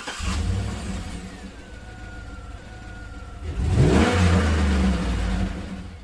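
Logo-intro sound effect: a whoosh at the start over a deep rumble, with a thin falling tone. About three and a half seconds in comes a louder rising sweep with heavier rumble, like an engine revving past, and it fades out near the end.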